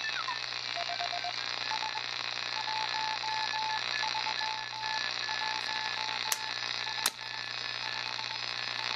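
Hammarlund HQ-110A shortwave receiver's speaker hissing with band noise and hash, which is probably mostly from fluorescent and LED lighting, while a faint Morse code (CW) signal keys on and off as a steady tone. Two sharp clicks about six and seven seconds in.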